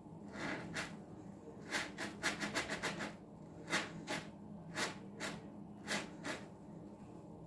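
A sponge full of dish-soap foam squeezed by hand, giving a series of short wet squelches: a quick run of them about two seconds in, then single squishes about half a second apart.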